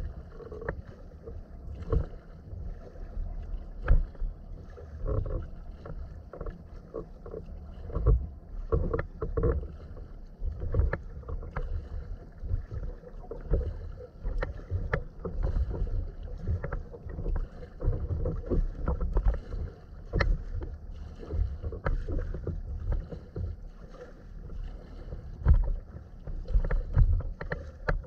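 Sea kayak being paddled through choppy water: irregular splashes and slaps of water against the hull, with sharp knocks and a steady low rumble underneath.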